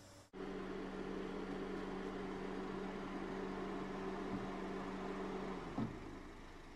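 A car running with a steady, even-pitched hum that cuts off about five and a half seconds in, followed by a short thump.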